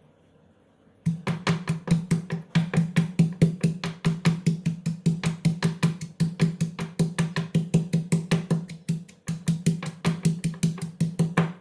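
Small onions (shallots) being crushed with a pestle in a stone mortar: rapid pounding, about five knocks a second, each with a low ringing note. The pounding starts about a second in and has a short break about three-quarters of the way through.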